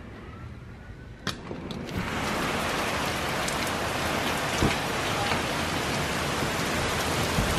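Heavy rain pouring down in a storm, a steady hiss that comes in about two seconds in after a short stretch of quiet room tone and a click.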